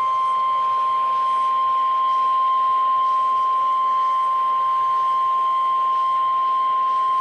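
NOAA Weather Radio 1050 Hz warning alarm tone: a single steady, unbroken high tone. It is the Emergency Alert System signal that a weather warning, here a severe thunderstorm warning, is about to be read.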